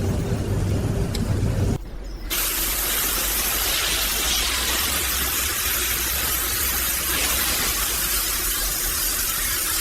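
A low rumble that drops away about two seconds in, followed by a steady, high hiss of rushing air or gas.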